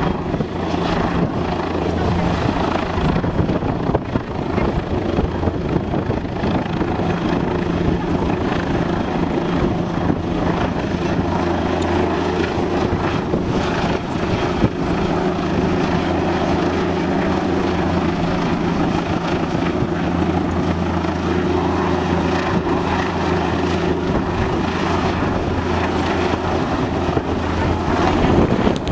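Aircraft engine running in a steady drone with a low hum, holding nearly constant in pitch and level.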